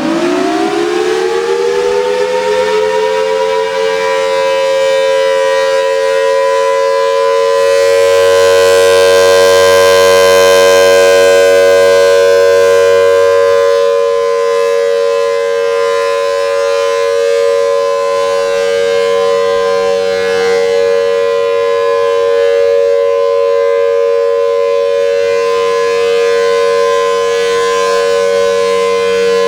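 Federal Signal Thunderbolt outdoor warning siren being tested: it finishes winding up, the pitch rising steeply and levelling off about two seconds in, then holds a steady, loud two-tone chord. The sound swells louder for several seconds about a third of the way in, then settles back.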